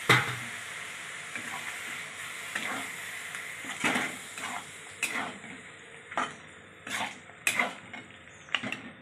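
Steel spatula stirring and scraping okra masala around an aluminium kadai, with a sharp clank against the pan at the start and short scraping strokes about once a second after it. A soft sizzle from the pan fades out about halfway through.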